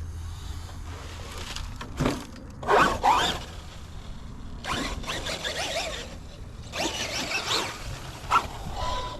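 Traxxas Maxx Slash RC truck driven in about five short throttle bursts: its brushless motor whine rising and falling as the tyres scrabble on loose ground.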